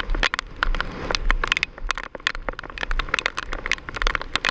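Heavy wind-driven rain striking the camera's microphone as a dense, irregular patter of sharp hits, over low wind buffeting.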